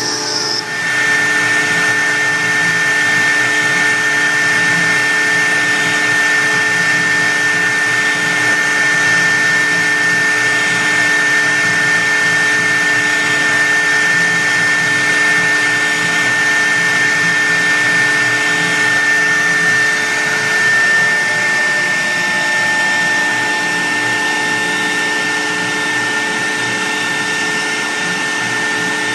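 CNC router spindle running steadily while cutting a sign, with a constant high whine over a steady hiss. The sound briefly dips and changes about half a second in, then holds steady.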